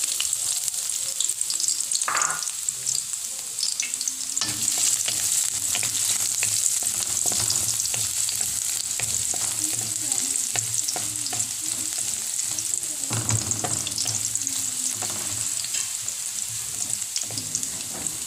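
Chopped garlic sizzling in hot cooking oil in a metal pan, with a wooden spatula stirring and scraping against the pan in many short clicks; the start of a sauté.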